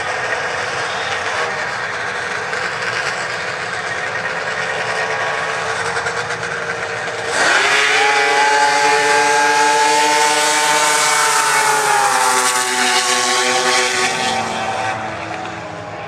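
A pack of racing snowmobile engines running at the starting line, then launching together about seven seconds in: a sudden loud jump to full throttle, the engine whine rising in pitch, holding, then falling and fading as the sleds pull away.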